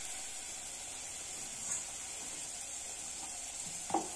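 Puri deep-frying in hot oil in an iron kadai: a steady sizzling hiss. A short knock near the end.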